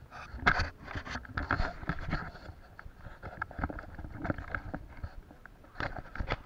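Footsteps and the rustle and knock of gear and rifle as a person moves in a crouch, an irregular run of scuffs and clicks.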